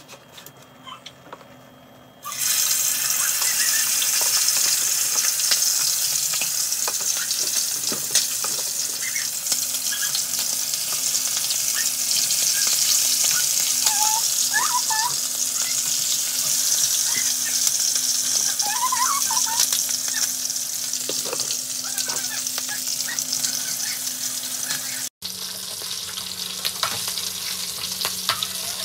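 Chicken pieces sizzling as they shallow-fry in hot oil in a frying pan. The sizzle starts loudly about two seconds in, after a quieter opening, and stays dense and even, with a momentary break near the end.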